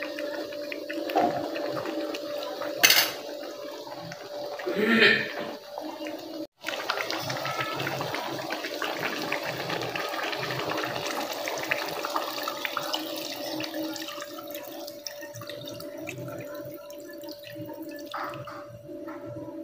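Water running or splashing, with a steady hum underneath. There is a sharp click about three seconds in and a louder splash-like burst about five seconds in, and the sound drops out for an instant at about six and a half seconds.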